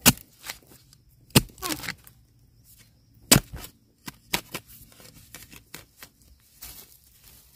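A digging spade chopping into bamboo shoots and soil: four loud sharp strikes at uneven intervals over the first four and a half seconds, with smaller knocks and crackling between and a few fainter knocks later.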